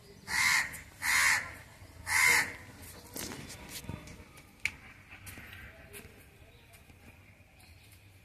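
A bird cawing three times in quick succession, each call about half a second long.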